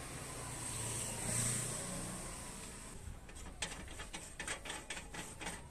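A rushing noise that swells about a second and a half in and fades, then a run of light, irregular clicks, two or three a second, as a threaded levelling bolt is turned by hand through a steel square-tube leg.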